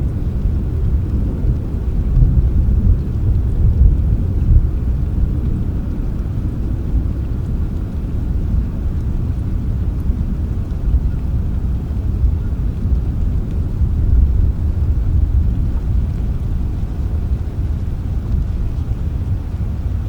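Long, low rolling thunder rumbling on without a break, swelling a few seconds in and again past the middle, over the hiss of steady rain.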